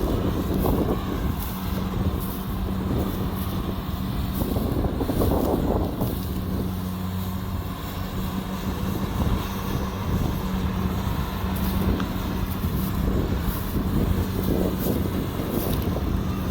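Kubota DC70 combine harvester's diesel engine running steadily under load, with a constant low hum and the rattle of the machinery over it.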